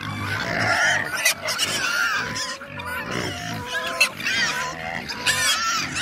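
A herd of hungry pigs squealing and grunting as they wait to be fed, many animals calling over one another, with chickens calling among them.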